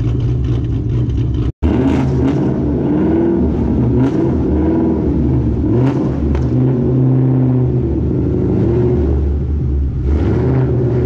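Cammed, supercharged 5.8-litre V8 of a 2013 Ford Shelby GT500 running at low speed with an uneven, lumpy idle, its pitch rising and falling with small throttle changes as the car is driven off a car trailer. The sound cuts out for an instant about one and a half seconds in.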